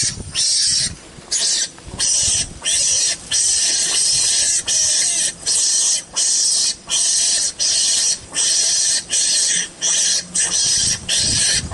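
Recorded animal lure call played through a small speaker to draw the mongoose. It is a hissy, chirring call that repeats about every 0.7 s, the same each time, like a looped recording.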